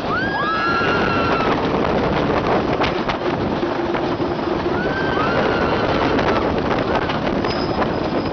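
Wooden roller coaster train running fast along its track: a steady rumble with wind on the microphone, the wheels humming a little, and a few clacks. Riders let out long high cries right at the start and again about five seconds in.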